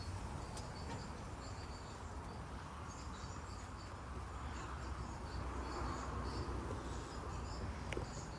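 Faint, scattered high insect chirps over a steady low rumble, with a broad hiss that swells in the middle and eases off.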